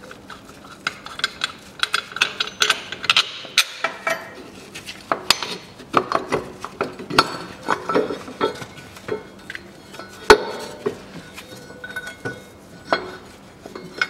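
Irregular metallic clinks and knocks as the loosened rear lower engine mount and its steel bracket are worked and shifted by hand.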